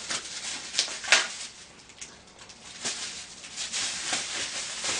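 Crinkling and rustling of clear plastic wrapping as a laptop battery is unwrapped by hand, with a few sharper crackles, the loudest about a second in.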